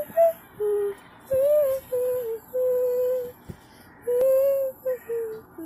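A woman singing a slow lullaby in a run of held notes with short breaks between them.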